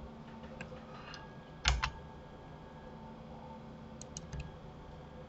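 Clicks of a computer keyboard and mouse while working in 3D software: a quick double click, the loudest sound, just under two seconds in, and three or four quick clicks around four seconds in, over a faint steady hum.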